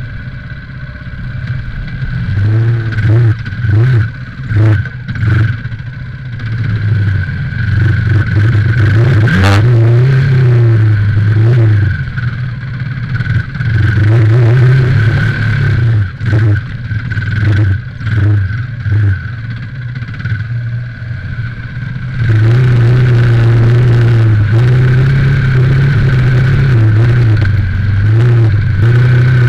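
Enduro motorcycle engine revving up and down under throttle while riding a dirt trail, the revs dropping briefly many times as the throttle is closed and opened again. Near the end it holds steady at high revs.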